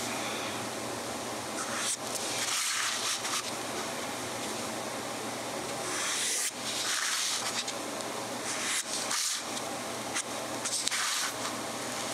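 Mabie Todd Swan 3220 fountain pen's 14-carat gold nib scratching across paper in calligraphy strokes: a hiss that swells and fades with each stroke, the longest about two and six seconds in.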